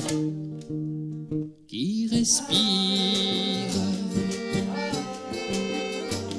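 Acoustic folk music on acoustic guitar, accordion and bongos. It breaks off briefly about a second and a half in, then resumes with voices sliding up into held wordless notes.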